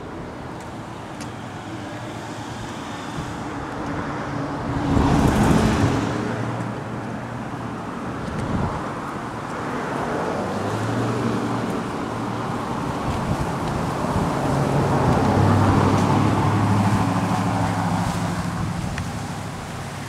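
Street traffic: cars driving by, their engine hum swelling and fading as they pass, with a sudden loud rush about five seconds in and another vehicle passing a little past halfway.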